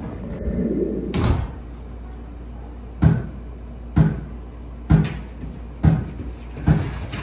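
Heavy banging on a wooden door: six loud knocks, about one a second, starting about a second in.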